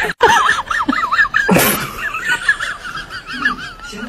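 High-pitched, warbling laughter, with a short burst of hiss about one and a half seconds in.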